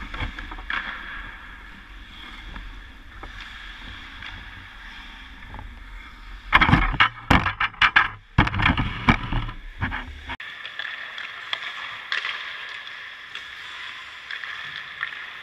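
Steady hum of an indoor ice rink, with a low rumble of the camera being handled. About six to ten seconds in comes a cluster of close knocks and scrapes as the camera is moved and set down on the ice. The rumble then cuts off suddenly, leaving only the rink hum.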